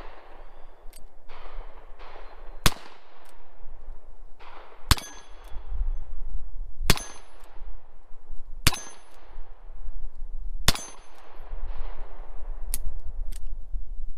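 Five shots from a stainless revolver, about two seconds apart, each a sharp crack with a short ringing tail.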